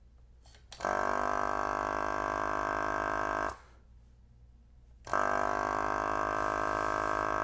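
S-993A vacuum desoldering gun's built-in vacuum pump running twice, each time for about two and a half seconds, with a steady hum. It pulls almost 400 mm of mercury on a gauge, a vacuum that sounds a little bit weak.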